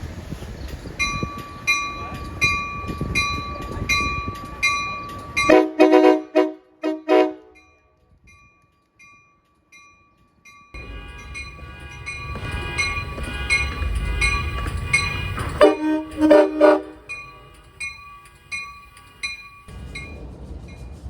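Amtrak Surfliner cab car horn sounding a group of short, loud blasts, and about ten seconds later two more. A bell dings steadily throughout, and the low rumble of a train comes in about halfway through.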